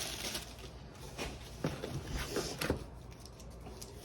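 Box contents being handled: a brief crinkle of plastic wrapping, then a few light taps and knocks.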